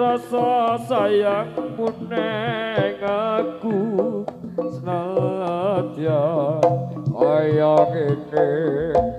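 Amplified live Javanese jaranan music: a melody with strong vibrato, most likely a singer's voice, over hand-drum strokes and a low sustained accompaniment.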